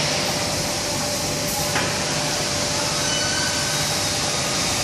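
Steady machine-like background noise with a faint steady hum, and one light click a little under two seconds in.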